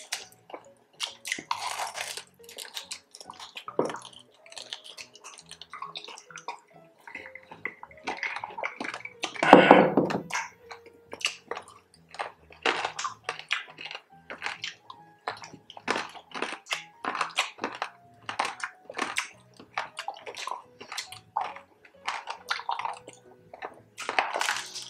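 Close-up chewing and crunching of crispy fried pork belly with rice, eaten by hand: a quick, uneven run of crackly crunches and wet mouth smacks, with one louder sound about ten seconds in.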